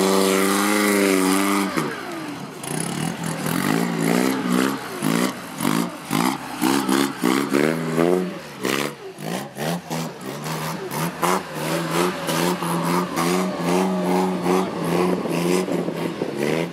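1925 Bentley 3-4.5 Litre Sports' four-cylinder engine revving under load. It holds high revs for the first couple of seconds, then its pitch rises and falls over and over, with sharp cracks through the second half.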